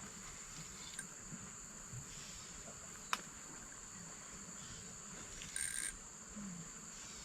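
Insects giving a steady high-pitched drone. There is a single sharp click about three seconds in, and a short, louder burst near six seconds.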